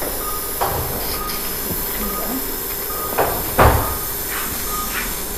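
Steady hiss of the surgical suction in the ear canal, with a patient monitor's pulse beep sounding faintly about every 0.7 s. A few short knocks of metal instruments come through, the loudest a little past halfway.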